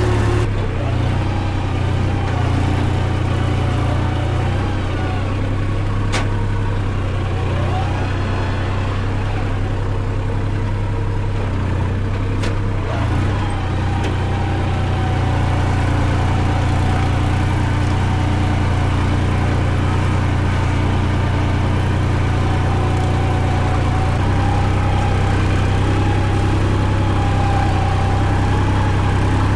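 Massey Ferguson 4WD tractor's diesel engine running steadily, heard from the driver's seat while the tractor works a field.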